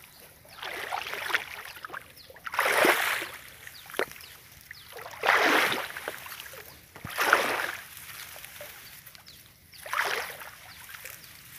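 Footsteps wading through shallow water and wet grass, a splashing swish with each step. About five steps, roughly two seconds apart.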